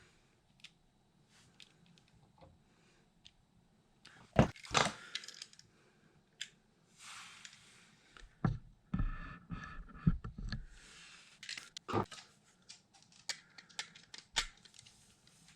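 Hands handling electrical wires, tools and a wall outlet: scattered clicks, rustling and light metallic knocks, with a few sharper taps about four seconds in, near twelve seconds and near fourteen seconds.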